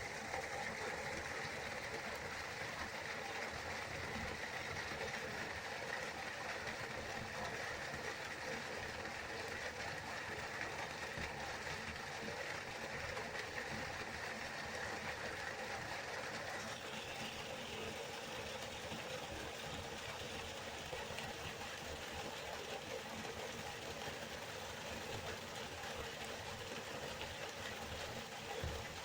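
A river flowing steadily with an even rushing noise, its tone shifting slightly higher about seventeen seconds in.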